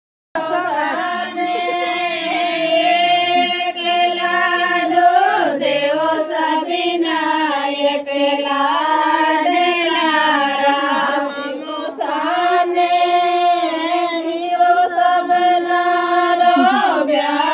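Women's singing: a slow folk-style song in long held notes that slide from one pitch to the next, loud and steady throughout.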